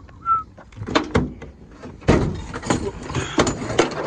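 Nissan pickup's tailgate being opened: latch clicks about a second in, then a sudden clunk a little after two seconds as it drops open, followed by clattering and knocks of gear in the bed. A bird chirps briefly at the start.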